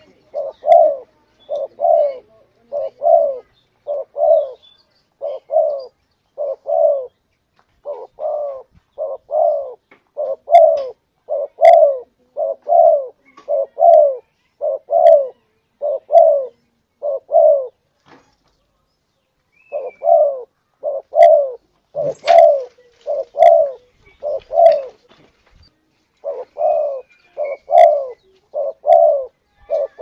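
Spotted dove (tekukur) cooing in a long, steady series of short coos, about one and a half a second, broken by a pause of about two seconds just past the middle. It is a dove lure call, used to draw other doves in.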